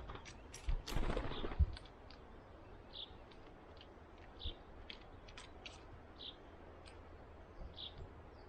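Birds at a wooden garden perch: scattered sharp taps and clicks of a bird pecking on wood, with a louder rustling burst about a second in. Short high chirps from a small bird repeat every second or so.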